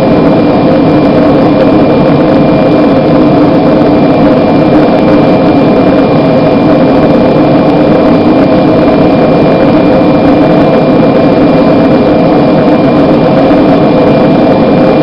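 Homemade propane gas forge burner running, a loud, steady rushing roar with a faint high whistle held through it.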